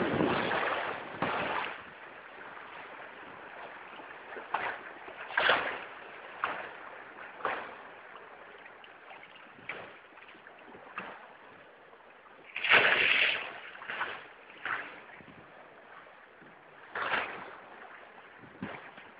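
Bow wave of a sailing yacht rushing along the hull, with irregular splashes of spray every second or two, the loudest about thirteen seconds in.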